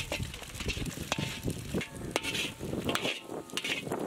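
Eggs sizzling and frying in oil in a large black iron kadai, with a perforated metal skimmer repeatedly scraping and knocking against the pan as they are stirred.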